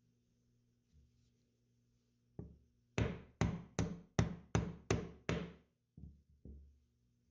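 A small hammer striking a pin punch to drive the trigger pin out of an SMLE Mk III* rifle's steel trigger guard: one light tap, then seven sharp metallic strikes about three a second, then two faint knocks near the end.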